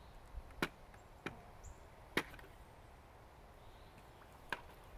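About four sharp, irregular knocks, the loudest about two seconds in, from a long pool net pole knocking against the concrete pool edge as it is handled.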